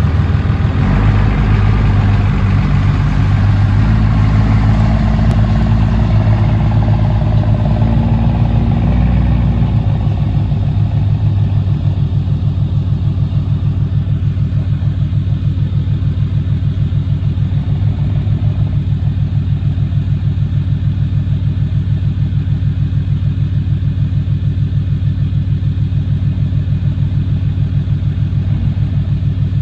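A 1993 Dodge Ram D250's 5.9-litre Cummins inline-six diesel running at a raised speed for about the first ten seconds, then dropping to a steady, even idle with a regular diesel beat.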